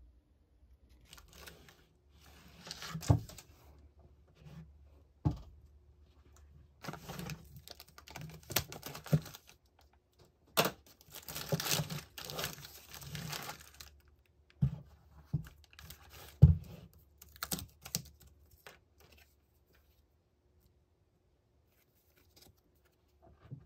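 Clear plastic packaging bags crinkling and rustling as they are handled, broken by several sharp taps of paper boxes and cards being set down on the table. The handling stops a few seconds before the end.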